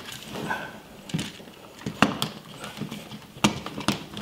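Plastic thermostat body and its stiff wires being pushed into a wall electrical box: a few sharp clicks and knocks, the loudest about two seconds in and two more near the end, with softer rustling of wires between.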